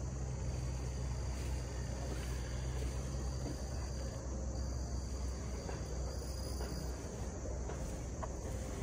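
Steady chorus of insects, crickets by the sound's kind, singing as a continuous high trill over a steady low rumble, with a few faint ticks.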